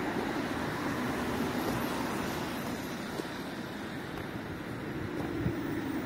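Steady road traffic: cars driving past on a wet street, a continuous mix of engine and tyre noise.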